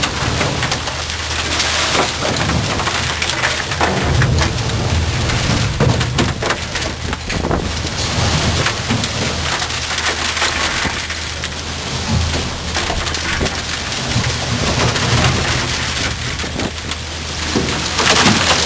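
High-pressure water jet blasting hardened concrete off the inside of a truck mixer drum: a loud, steady rushing hiss dotted with sharp cracks and clatter as concrete breaks away. A low steady drone runs underneath.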